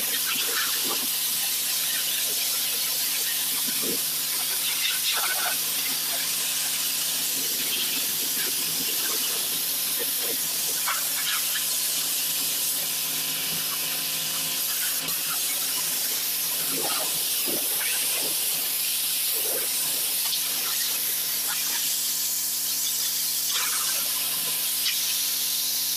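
Pressure washer wand jetting water onto concrete pool-deck pavers: a steady, loud spray hiss with a faint steady hum underneath.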